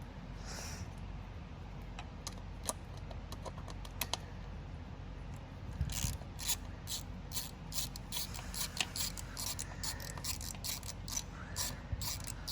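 Hand tools working on the intercooler piping: a few scattered light clicks and knocks, then from about halfway a run of quick ratchet clicks, as of a ratchet wrench tightening a bolt.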